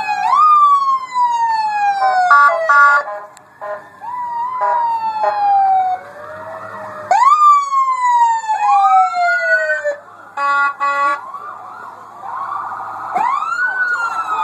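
Police vehicle sirens wailing, several at once, each sweeping quickly up in pitch and then falling slowly over two or three seconds. Short pulsed horn blasts cut in twice, about two seconds in and again about ten seconds in.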